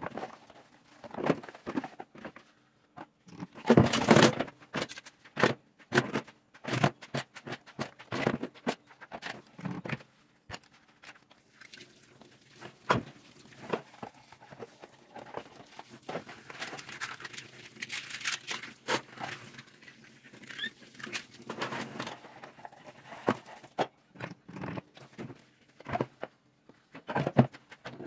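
Dishes washed by hand in a sink: plastic bowls and kitchenware knocking and clattering at irregular moments, with sponge scrubbing and the tap running at times.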